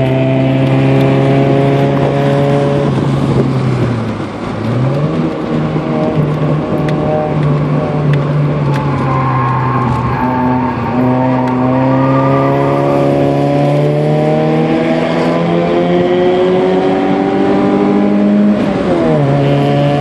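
Nissan B13's GA16 1.6-litre four-cylinder engine heard from inside the cabin, driven hard on track. The engine note drops as the throttle is lifted about four seconds in, then picks up again. It climbs steadily under power through the second half and falls with a gear change near the end.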